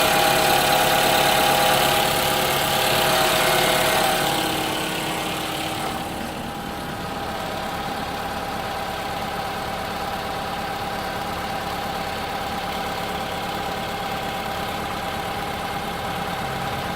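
Toyota 2AR-FE 2.5-litre four-cylinder engine idling cold with a knock, which the owner takes for piston knock that goes away once the engine is warm. About five seconds in the sound gets quieter and duller, then stays steady.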